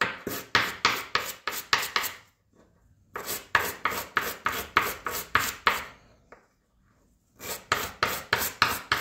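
Brisk back-and-forth hand scrubbing on a small metal brake master cylinder part to clean it up, a rasping stroke about three or four times a second. The strokes come in three runs with two short pauses.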